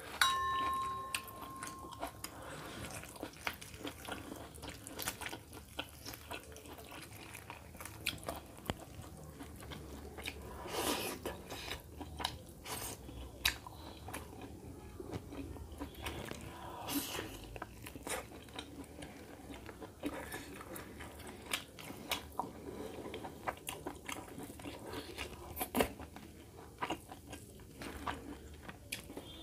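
Close-miked eating sounds: chewing and biting of chicken and rice eaten by hand, with many small clicks and crunches. A steady high tone sounds for about the first two seconds.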